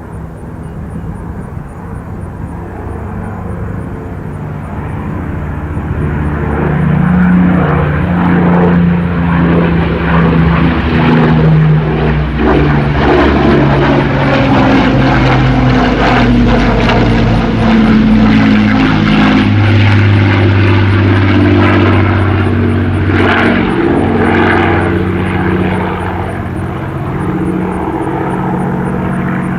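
A Rolls-Royce Merlin–engined WWII propeller warbird flying past. The engine swells in from a distance, stays loud through the middle, and drops in pitch as it goes by before fading.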